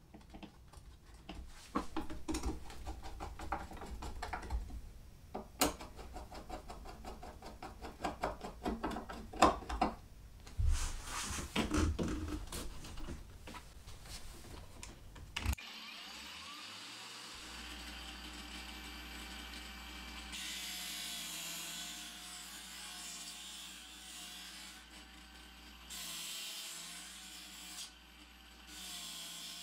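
Clicks and knocks of a sanding disc and its fittings being handled and fastened. About halfway through, an angle grinder mounted under a bench as a disc sander starts with a short rising whine and runs steadily. A few seconds later, a wooden block pressed against the spinning sanding disc adds a rubbing hiss in several strokes.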